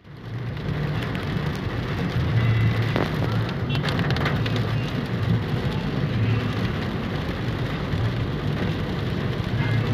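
A car driving on a rain-wet road in the rain, heard from inside the cabin: a steady hiss of rain and tyres over a low rumble.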